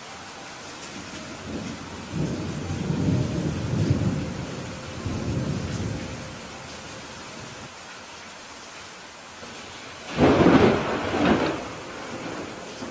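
Steady rain falling, with a low rolling rumble of thunder from about two seconds in, then a louder, sharper thunderclap about ten seconds in.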